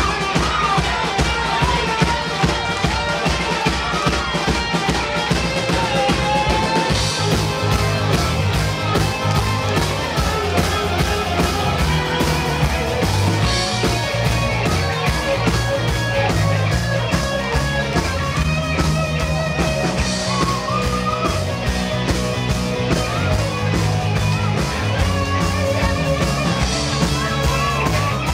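Live rock band playing loudly: electric and bass guitars over a steady drum beat.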